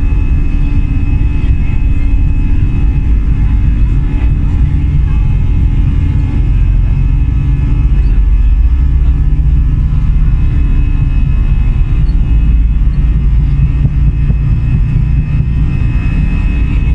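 Inside the cabin of an Airbus A320-200 under power: loud, steady jet engine and airframe rumble with a thin steady whine above it, typical of the takeoff or climb.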